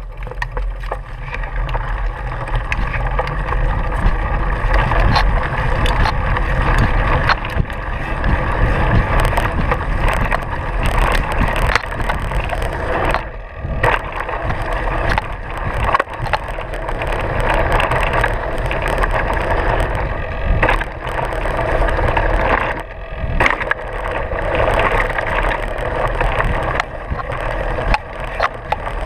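Mountain bike ridden fast over a leaf-covered dirt trail: the knobby tyres crunch through dry leaves and dirt, with many small knocks and rattles from the bike, and wind on the microphone. The noise drops briefly about 13 seconds in and again about 23 seconds in.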